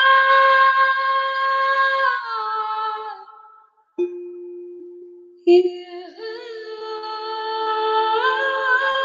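Long, sustained sung notes in a woman's voice, held steady, then sliding down and fading out about three seconds in. A soft strike about four seconds in leaves a steady ringing tone, a second strike comes about a second and a half later, and the held singing returns, stepping to new pitches near the end.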